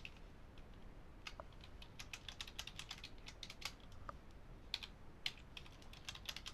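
Computer keyboard typing: a faint run of irregular key clicks, with a few sharper keystrokes.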